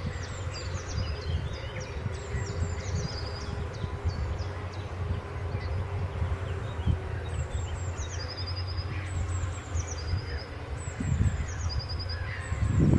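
Birds chirping, with repeated short high falling calls and a few quick trills, over a low steady rumble from a tractor ploughing the field.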